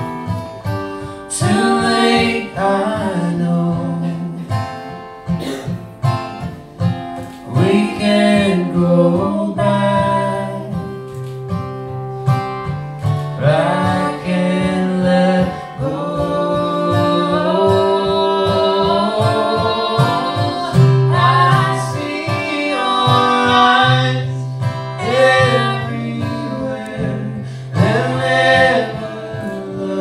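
Live acoustic song: a woman singing into a handheld microphone, accompanied by an acoustic guitar played through the microphone.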